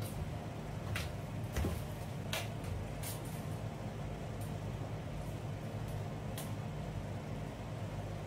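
Scattered light clicks and taps from tools and a vinyl floor tile being handled and marked on the floor, over a steady low hum.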